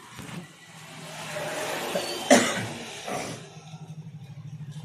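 A person coughing, sharpest about two seconds in with a smaller cough about a second later. After that an engine runs in the background with an even pulsing beat.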